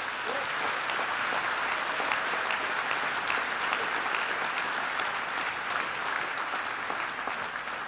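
A large audience applauding, many hands clapping in a dense, even patter that tapers off near the end.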